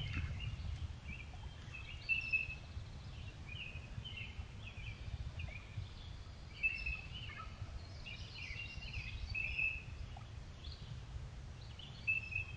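Birds calling in a string of short, repeated chirps, over a steady low rumble of trail camera microphone noise.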